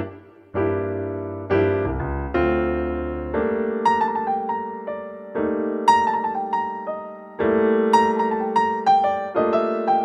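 Background piano music: slow held chords with single melody notes played over them.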